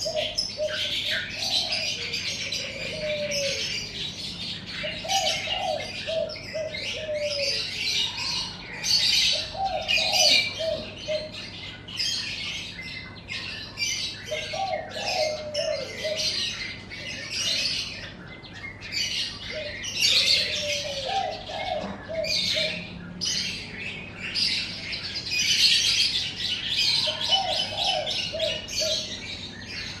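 Caged songbirds chirping and twittering continuously, high-pitched and overlapping, with a dove cooing short phrases of low, falling notes every few seconds.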